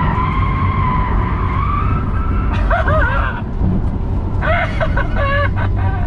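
Tyres of a Rimac Nevera electric hypercar squealing in a drift. A steady high squeal lasts about two seconds, then wavering squeals come in two spells about three and five seconds in, over a constant low rumble.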